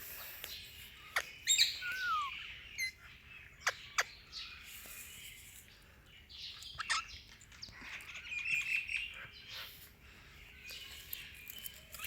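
Indian ringneck parakeet making short chirps and squawks at irregular intervals, some with quick pitch glides, mixed with sharp clicks.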